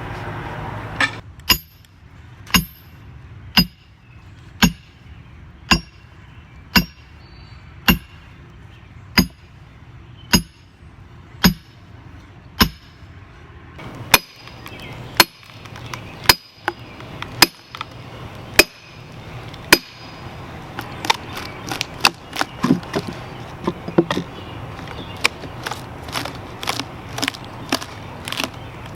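Heavy blows struck again and again into a large red oak log being split, about one a second at first, then faster and less even in the last third. Some blows carry a bright ring.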